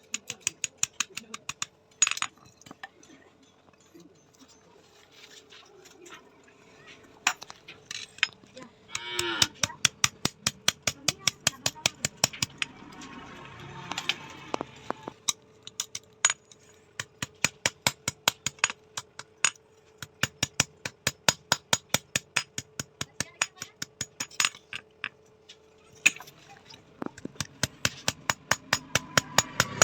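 Hand hammer striking steel on an anvil while forging bearing steel: runs of sharp ringing blows, about three to four a second, with a sparser pause early on before the hammering picks up again.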